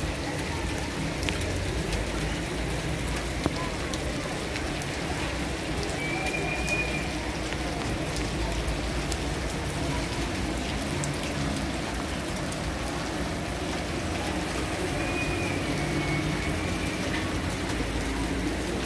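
Steady rain falling on a city street, with scattered drops ticking close by.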